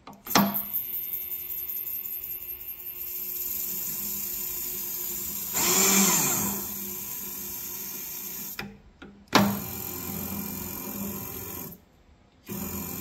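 Servo X-axis power feed on a Bridgeport milling machine, its motor whirring steadily as it drives the table. It starts with a click, surges louder for about a second halfway through with its pitch dipping and rising again, and stops twice briefly near the end.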